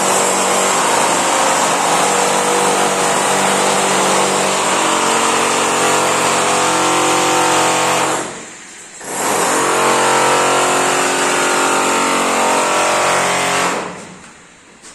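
An electric power tool's motor running at full speed, stopping for about a second roughly eight seconds in, then starting again and winding down near the end.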